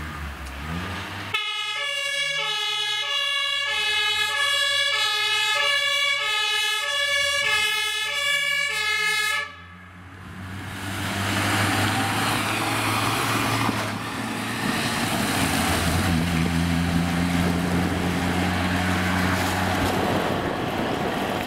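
Fire engine's two-tone siren, the German Martinshorn, alternating steadily between two notes from about a second in, until it cuts off abruptly about halfway through. The rest is the truck's engine running steadily with road noise as it drives along.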